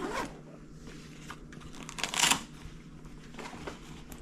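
Rustling and handling noises, a string of short scuffs and clicks with one louder rustle about two seconds in.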